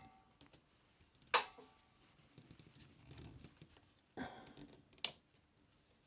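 Camera and laptop being handled and repositioned: three sharp clicks or knocks, about a second in, past four seconds and near five seconds, over faint rustling.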